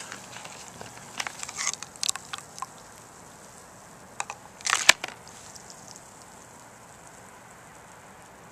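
Scattered handling clicks and rustles: a cluster of them about a second in, and a louder rattle ending in a sharp click a little before the middle, with quiet between.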